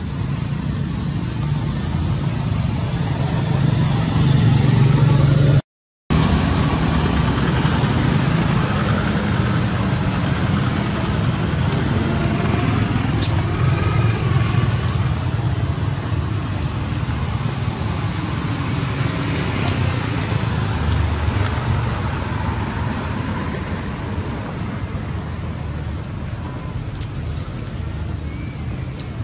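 Steady, loud, low rumbling background noise. The sound cuts out completely for about half a second, about six seconds in.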